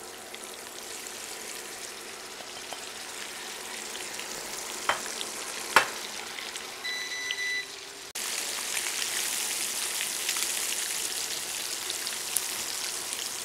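Marinated fish pieces sizzling and crackling as they shallow-fry in hot mustard oil in a nonstick pan. Two sharp clinks come about five and six seconds in, followed by a short electronic beep. The sizzle gets louder about eight seconds in.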